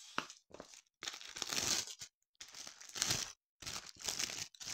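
Plastic packaging and a stiff printed cross-stitch canvas crinkling and rustling as the canvas is unwrapped and handled, in about four separate bursts of a second or so each.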